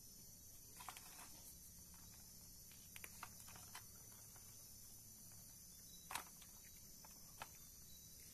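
Near silence with a few faint clicks and taps from handling: a plastic spice bottle being shaken over fish and hands rubbing the fish in an aluminium tray. The strongest tap comes about six seconds in.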